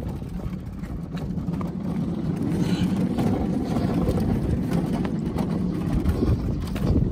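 Low, steady rumble of a half-scale wooden minibus's wheels rolling as it coasts down an asphalt street with no motor running.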